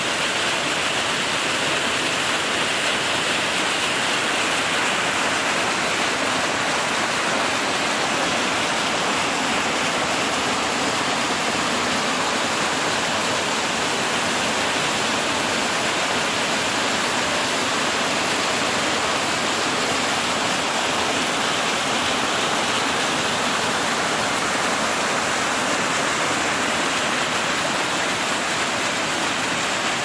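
Waterfall pouring over rock ledges into whitewater: a steady, even rush of water.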